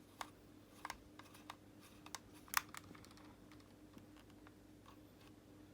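Faint, irregular small clicks and taps as a small screwdriver works a tiny screw out of an Xbox One controller's plastic housing, with one louder click about two and a half seconds in. A faint steady hum runs underneath.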